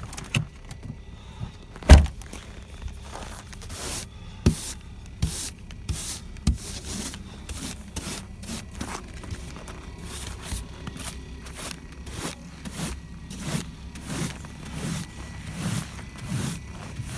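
Repeated scraping strokes clearing snow and ice off a car, about one to two a second, with a sharp knock about two seconds in. The idling engine of a Skoda Octavia 1.4 TSI, cold-started at minus 12 and warming up, hums steadily underneath.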